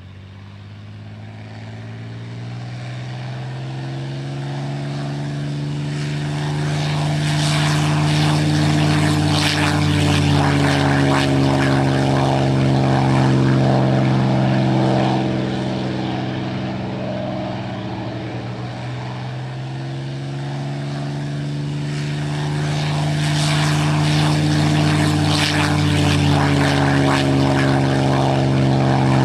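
Propeller aircraft piston engine running with a steady drone that fades in gradually, is loudest around the middle, eases off slightly about two-thirds through, then builds again near the end.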